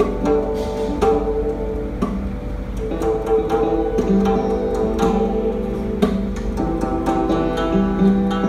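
Live acoustic world-music ensemble playing: hammered dulcimer and guzheng notes struck and plucked in quick succession, over long held notes from a bowed string instrument.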